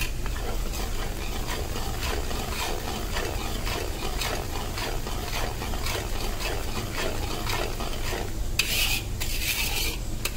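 Flat metal spatula stirring and scraping through boiling sugar syrup in an aluminium kadhai, about two strokes a second, with a brief louder hiss near the end. The syrup is being boiled hard on its way to granulated khand.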